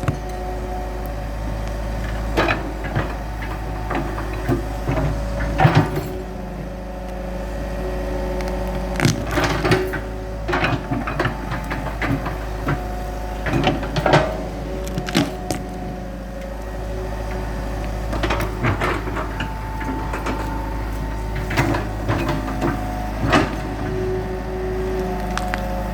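Hitachi EX100-2 excavator's diesel engine running steadily under digging, with irregular sharp knocks, clanks and cracks from the bucket working at a tree stump.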